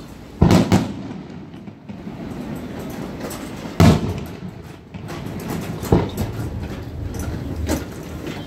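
Aerial fireworks shells bursting overhead: three loud bangs, just after the start, about four seconds in and about six seconds in, and a smaller one near the end, with a rumble and crackle running between them.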